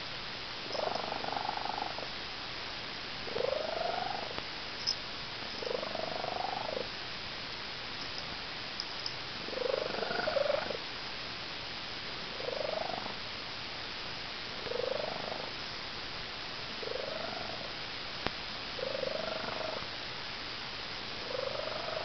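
Calico cat's loud, broken "bird purr": a chirpy, bird-like call that rises and falls, repeated about every two seconds.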